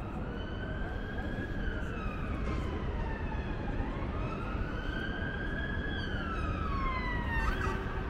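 An emergency vehicle's siren wailing, its pitch rising and falling slowly twice over a steady low background rumble.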